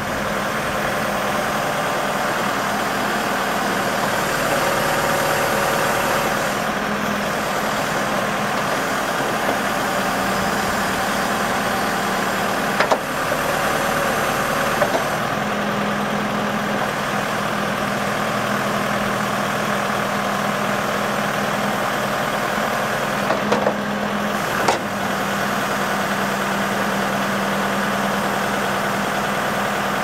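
A New Holland four-cylinder turbo diesel running steadily in a backhoe loader while the backhoe boom and bucket are worked, with a few short sharp knocks around the middle.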